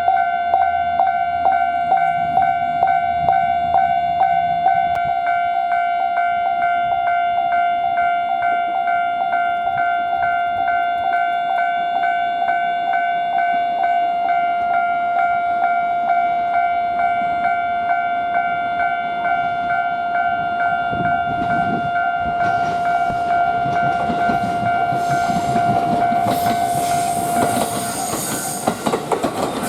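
Japanese railway level-crossing alarm ringing steadily, about two strokes a second. About two-thirds of the way in a train approaches over the crossing, and its rumble and wheel clatter grow louder toward the end.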